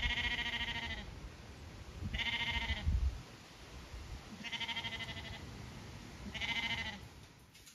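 Lambs bleating: four separate calls, each under a second long, about two seconds apart. A low thump comes about three seconds in.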